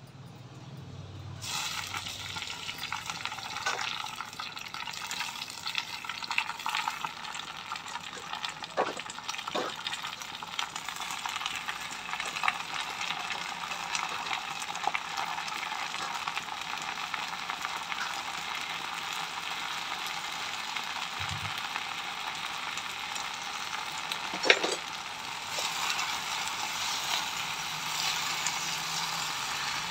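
Fresh gongura (sorrel) leaves frying in hot oil in an iron kadai: a steady sizzle that starts abruptly about a second and a half in. A few sharp knocks of a utensil against the pan break through, the loudest one near the end.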